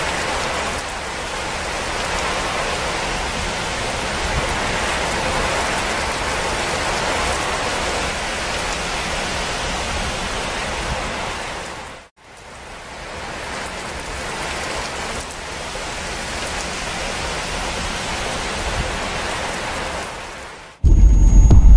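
Steady rain, fading out to a brief silence about halfway through and fading back in. In the last second a much louder, deep sound suddenly cuts in.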